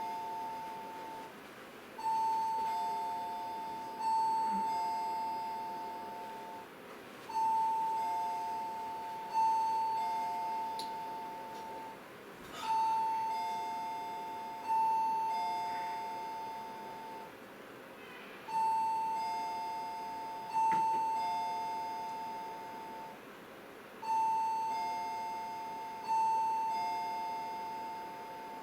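An alarm tone ringing as a two-note chime: a higher and a lower note struck in turn, each fading away, the pattern repeating over and over without a break.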